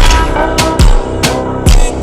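Background music with a steady electronic beat: deep kick drum hits about twice a second under sustained synth notes.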